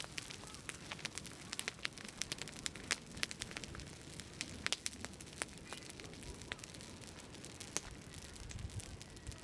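Pile of dry grass, straw and twigs burning, crackling with many sharp, irregular pops and snaps over a steady rush of flame.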